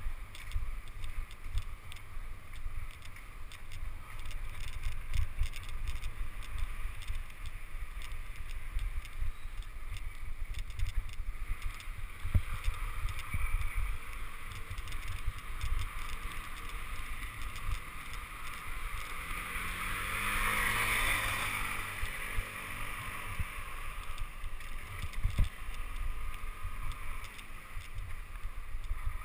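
Bicycle rolling over cobblestones: a constant jolting rumble and rattle carried through the camera mount. About twenty seconds in, a passing motor vehicle's engine swells and fades.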